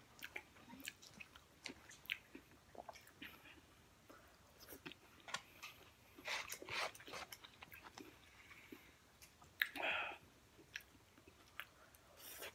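Quiet chewing and mouth sounds of people eating burrito and tacos: scattered wet smacks and clicks, with a somewhat louder one about ten seconds in.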